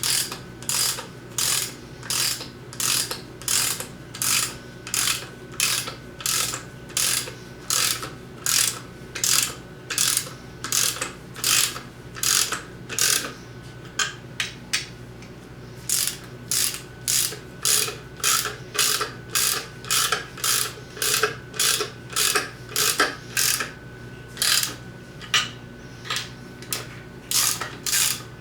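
Hand ratchet wrench clicking in quick back-and-forth strokes, about two a second, as water pump bolts are run down and tightened, pausing briefly a couple of times.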